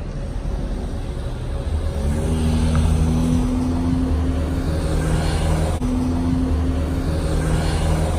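A motor vehicle engine running with a steady low hum that grows louder about two seconds in, over street traffic noise.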